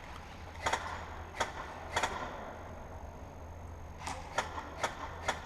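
Airsoft gun firing single shots: sharp clicks, three spaced well apart in the first half, then four quicker ones near the end.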